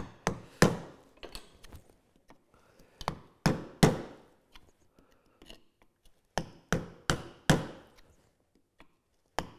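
A mallet strikes a narrow chisel, chopping a mortise in wood. The sharp, irregular knocks come in short runs, with a lull in the middle and near the end.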